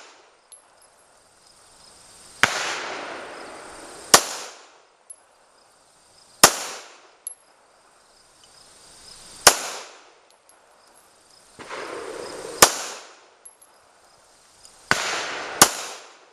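.45 handgun firing single shots: about six sharp bangs spaced a couple of seconds apart, each followed by a short echoing tail.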